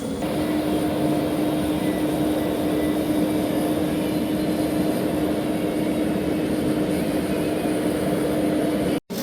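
Propane forge burner running while the forge heats toward forge-welding temperature: a steady rushing noise with a steady low hum. It cuts off briefly near the end.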